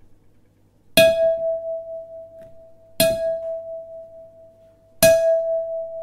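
A bell struck three times, two seconds apart, each stroke ringing on with one steady tone until the next: a clock striking three o'clock.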